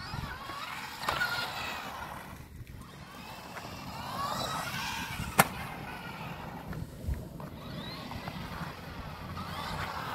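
Brushed electric motor of a 1/18-scale four-wheel-drive RC truggy whining up and down with the throttle as it drives over concrete, with the rumble of its hard tyres. A single sharp knock about five seconds in.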